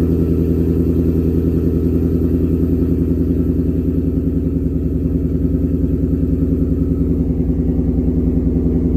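2016 Ford Mustang GT's 5.0-litre V8 idling steadily at about 1,000 rpm through a Roush aftermarket exhaust with an X-pipe. The upstream oxygen sensors have just been replaced, and the owner no longer hears the miss.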